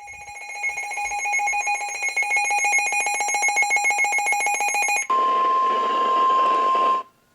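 Emergency alert tones for a flash flood warning: a rapidly pulsing electronic alarm tone for about five seconds, then the steady single-pitch NOAA Weather Radio warning alarm tone over radio static, which breaks off shortly before the end.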